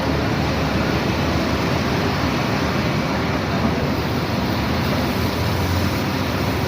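Heavy diesel construction machinery, a concrete mixer truck and a backhoe, running steadily at a concrete pour, heard as a dense, even noise with no distinct knocks.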